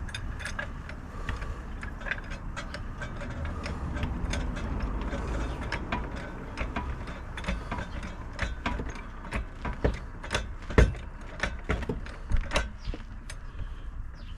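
Car jack being worked to lift a car at its jacking point: a run of irregular metallic clicks and clanks that grows stronger in the second half, the loudest about eleven seconds in, over a steady low rumble.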